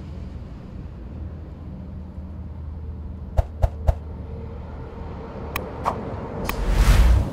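Animated subscribe-button sound effects over a steady low outdoor rumble. Three quick pops come about three and a half seconds in, two mouse-click sounds follow about two seconds later, and a swelling whoosh ends abruptly at the close.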